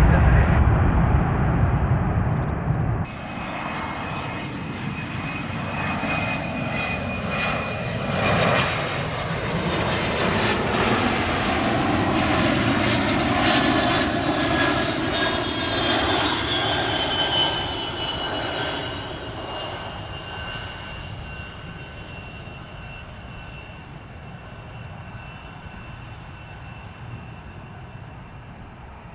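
Bombardier Challenger 350 business jet's twin turbofans passing overhead on arrival. The noise swells, peaks, then fades, and a high turbine whine slides down in pitch as the jet goes by. It opens with a loud low rumble that cuts off about three seconds in.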